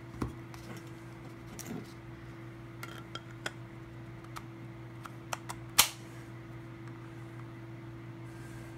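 A steady low hum with scattered light clicks and clinks of small hard objects, about ten in all, the loudest a sharp click near six seconds in.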